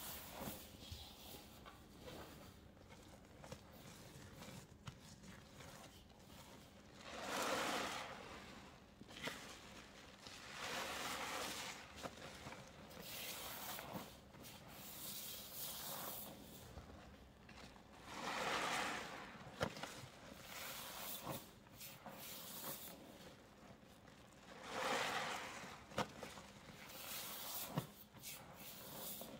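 Hands squeezing a wet ball of cleaning powder mixed with paste: several separate soft, crunchy squishes, each about a second long, with small crackles between them.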